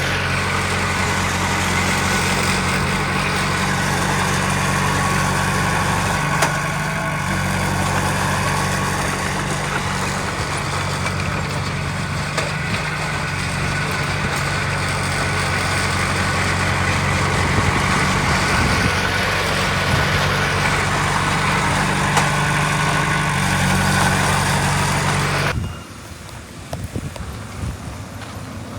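Heavy diesel earthmoving machinery running steadily, a bulldozer or dump truck engine with a deep, even drone. Near the end the engine sound cuts off abruptly, leaving a quieter low rumble.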